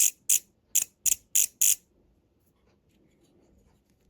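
A new amplifier output relay clicking as its coil is switched on and off: six sharp clicks in quick, slightly uneven succession over the first two seconds. The clicks show that the relay's contacts are pulling in and working.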